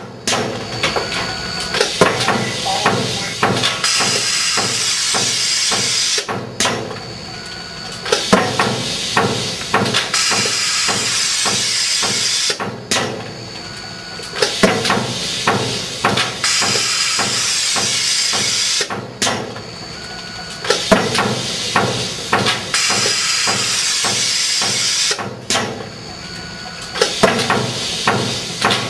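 Spartanics die-cutting press with an M73 sheet extractor cycling through magnetized sheet material: a cluster of sharp clacks followed by a steady hiss, the cycle repeating about every six seconds with a short lull between.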